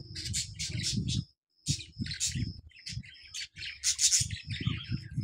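A flock of small caged aviary birds chirping, many quick high chirps overlapping in irregular bursts, over a choppy low rumble.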